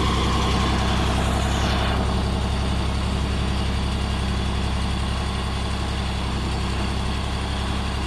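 Excavator's diesel engine running steadily. A noisier hiss over it fades out about two seconds in.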